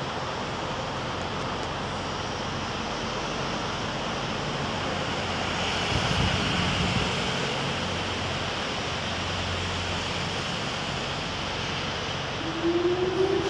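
Steady rushing noise of wind from a passing thunderstorm, swelling briefly midway. Near the end a rising whine starts over it.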